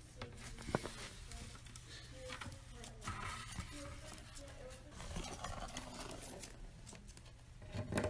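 White-bellied caique's beak and claws scraping and tapping on a wooden floor and baseboard as it rolls and rubs itself along them: a scattered run of light clicks and scratches.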